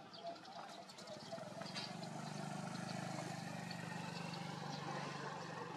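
An engine running off-camera with a steady low hum that swells about two seconds in and eases off near the end, with faint high chirps scattered above it.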